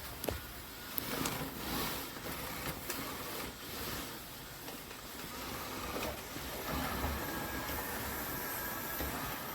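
Robot vacuum cleaner running, a steady mechanical whir with hiss and a few light clicks.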